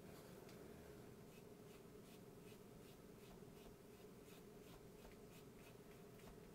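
Faint, light scratching strokes of a red Posca paint marker's tip worked over a painted wooden heart cutout, a few strokes a second, over a steady low hum.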